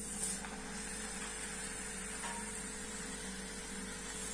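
Chakli spirals frying in hot oil: a steady sizzling hiss that swells as the batch goes in.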